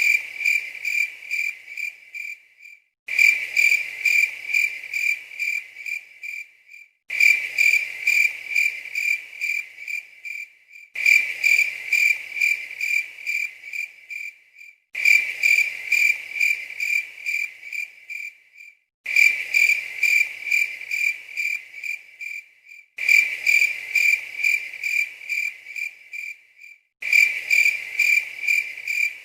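Cricket chirping in an even run of about three chirps a second. It is a short sound-effect recording looped: every four seconds it starts again suddenly, fades, and breaks off for a moment.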